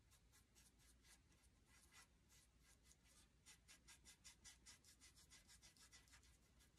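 Faint, quick scratchy strokes of a small paintbrush's bristles sweeping back and forth over a painted wooden board, dry-brushing highlights onto a heart; the strokes come faster around the middle, about five a second.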